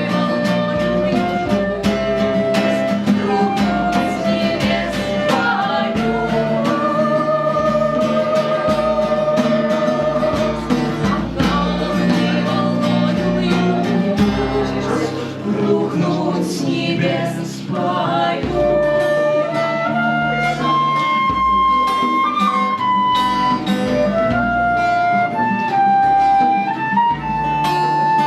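Live band playing: guitar with a melody line of held notes over a steady bass beat.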